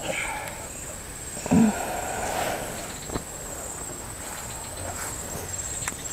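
Outdoor ambience with a steady high-pitched insect drone, broken by one short vocal grunt about one and a half seconds in and a sharp click about three seconds in.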